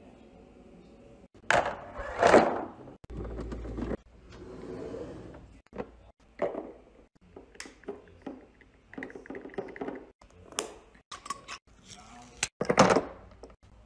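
Knocks, taps and clinks of kitchen containers being handled and set down, a series of separate sharp strikes with quieter gaps between, loudest about two seconds in and again near the end.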